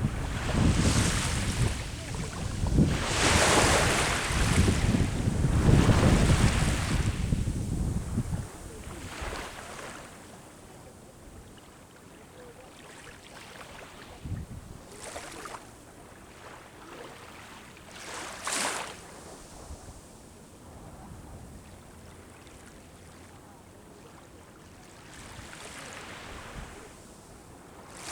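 Sea waves breaking and washing up the shore, surging every few seconds, with wind buffeting the microphone for the first eight seconds or so.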